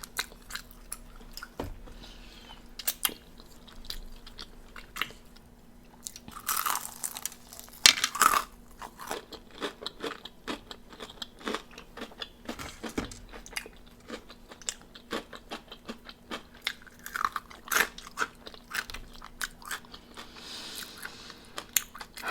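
Close-miked chewing and crunching of crispy fried chicken wings. There are steady small mouth clicks, with louder crunchy bites about seven to eight seconds in and again near eighteen seconds.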